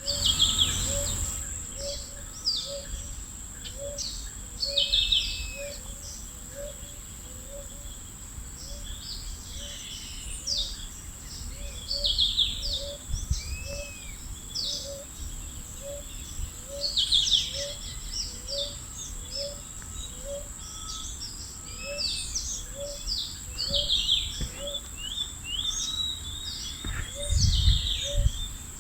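Tropical wild birds calling: many short chirps and whistles from several birds. Under them run a continuous high whine and a soft low pip repeating about one and a half times a second.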